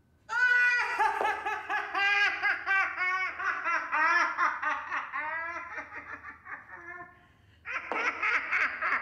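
A person laughing hard in rapid, high-pitched pulses. The laughter breaks off briefly about seven seconds in, then starts up again.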